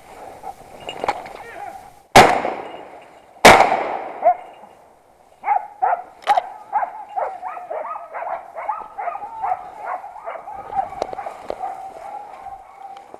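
Two gunshots about a second apart, each ringing off, the loudest sounds here. A couple of seconds later a dog starts barking over and over, about three barks a second.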